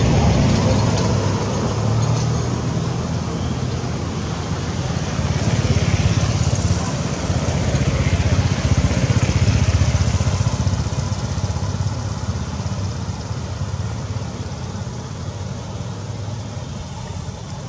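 Steady low rumble like a running engine, growing louder around the middle and slowly fading toward the end.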